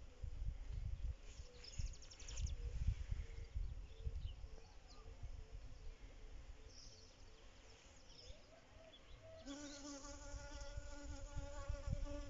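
Honey bee buzzing on the wing, faint and intermittent at first, then a loud steady hum for about three seconds near the end as it flies close. Wind buffets the microphone with low rumbling gusts.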